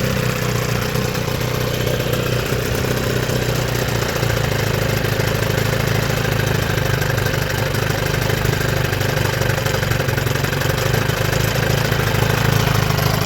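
1997 Johnson 9.9 hp two-stroke outboard motor running steadily at an even speed.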